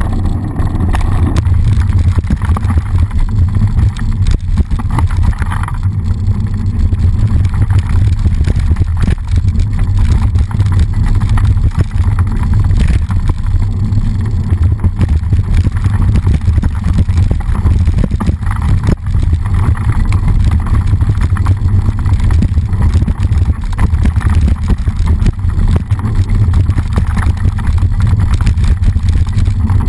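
Mountain bike rolling fast down a dirt flow track, heard through a bike-mounted action camera: loud, steady wind rumble on the microphone with constant rattling and knocks as the bike runs over the bumpy ground.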